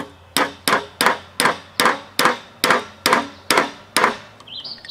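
Hammer blows driving a bearing off an air conditioner fan motor's shaft: about eleven sharp strikes at a steady two and a half a second, each with a short ring, stopping a little before the end.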